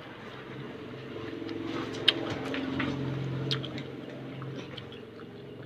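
An engine hum that swells over a couple of seconds and then fades, with a few sharp clicks and taps.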